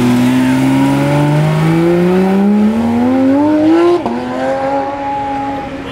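Porsche 911 GT3 RS flat-six accelerating hard, its engine note climbing steadily in pitch for about four seconds. Then it breaks off abruptly and a quieter, lower, steadier engine sound follows.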